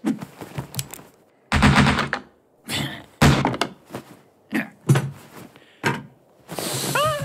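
Cartoon foley of wooden objects being knocked about: several heavy thuds and sharper knocks, then a wavering squeak near the end.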